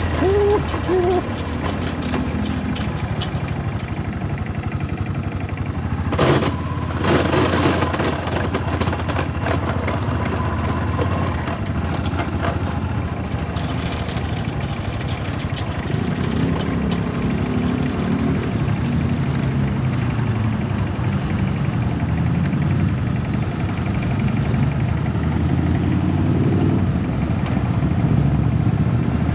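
Yamaha SRX400's single-cylinder four-stroke engine running steadily on a bike whose clutch the owner believes is slipping, with a brief rush of noise about six seconds in.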